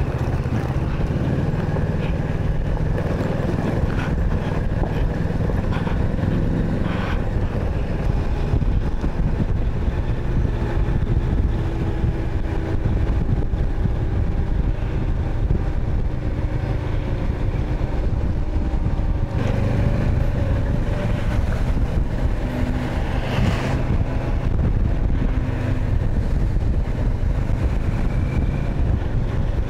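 Kawasaki Versys 650's parallel-twin engine running under way on a rough, unpaved road, its note shifting about twenty seconds in.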